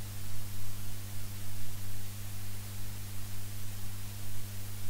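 A steady low hum with a hiss of background noise, with no speech: the noise floor of the recording.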